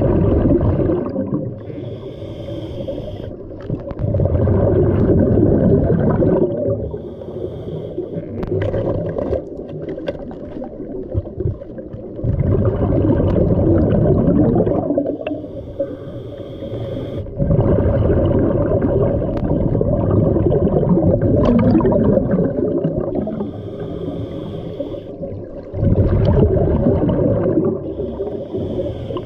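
Scuba diver breathing through a regulator underwater: a loud burst of exhaled bubbles every few seconds, alternating with a quieter hissing inhale.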